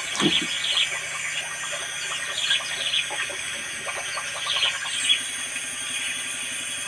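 Outdoor ambience: a steady high-pitched hum with scattered short chirps and small clicks, and a brief low falling sound just after the start.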